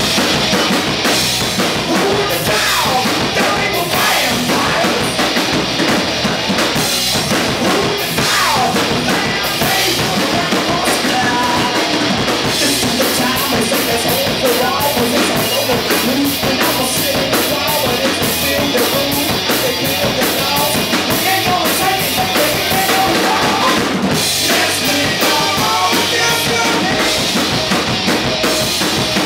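Live rock band playing loud and steady: drum kit, electric guitar and bass guitar, with the singer's vocals.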